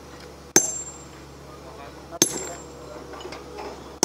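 Sledgehammer blows on a sandstone block being split by hand: two sharp strikes about a second and a half apart, each with a short metallic ring, and a third right at the end.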